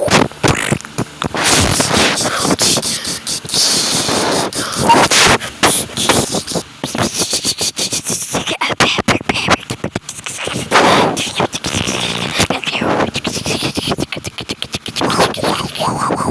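Mouth-made sound effects: a fast run of clicks, pops and hissing puffs, voiced in imitation of action-scene hits and shots for an animation.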